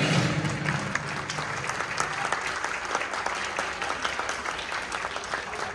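Audience applauding, a dense patter of many hands clapping that slowly fades away.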